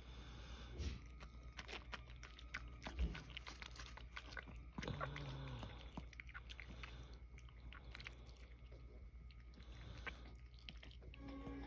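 A mother dog licking and chewing at her newborn puppy: faint, irregular wet smacking and crunching clicks.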